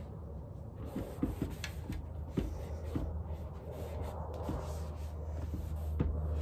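Cloth wiping and rubbing along a painted wooden chair frame, a continuous scratchy rubbing with small taps and clicks scattered through it, over a steady low hum.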